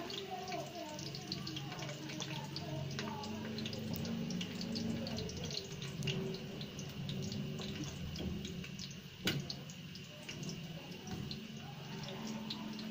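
Sliced onions frying in hot mustard oil in an aluminium karahi: a steady sizzle full of small crackling pops. One sharp knock about nine seconds in.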